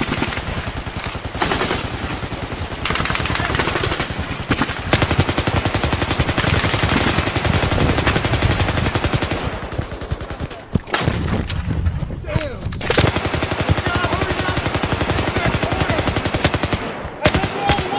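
Sustained automatic gunfire: long strings of rapid shots, broken briefly about eleven seconds in, with faint shouted voices between bursts.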